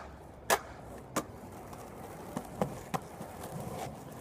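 Skateboard rolling on rough concrete, its wheels giving a steady rumble that grows as it comes closer, with several sharp clacks from the board and the rider's feet.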